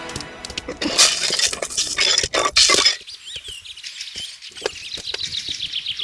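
Kitchen utensils clinking and tapping against dishes while food is mixed, busiest in the first three seconds. After that come lighter separate taps, and birds chirp in the background.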